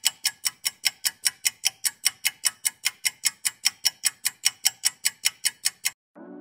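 Fast, even clock-like ticking, about five ticks a second, that stops abruptly near the end.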